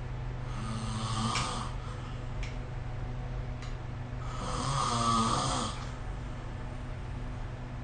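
A sleeping person snoring twice: a shorter snore about half a second in and a longer, louder one about four seconds later, over a steady low hum.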